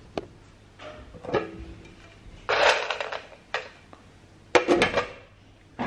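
Handling noise close to the microphone: a few light clicks, a short rustling burst about two and a half seconds in, and another cluster of clicks and rustling near the end.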